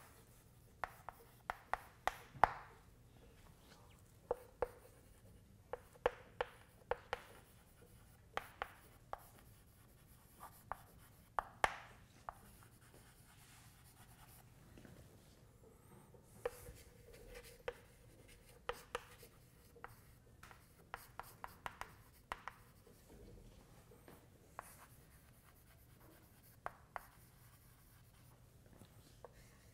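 Chalk writing on a blackboard: irregular runs of sharp taps and short scrapes as words are written, broken by brief pauses.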